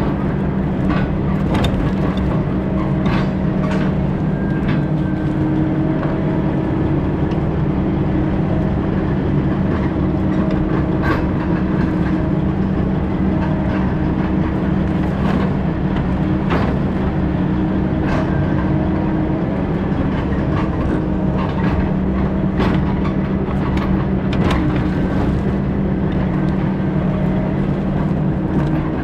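Heavy logging machine's engine running steadily under load, with frequent metallic clanks and knocks from the machine working.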